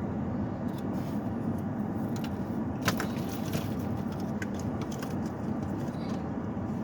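Steady low rumble of a moving car heard from inside the cabin, with a few light clicks, the sharpest about three seconds in.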